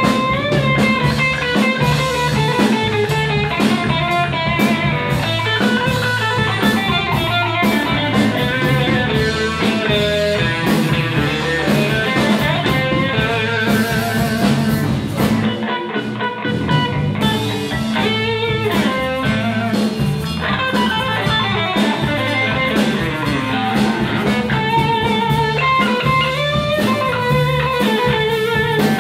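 Live blues band playing an instrumental break: an electric guitar lead with bent, wavering notes over bass guitar and drum kit.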